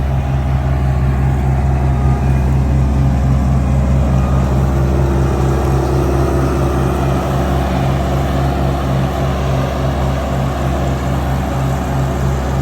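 A large engine running steadily at constant speed, with a low, even pulsing throb.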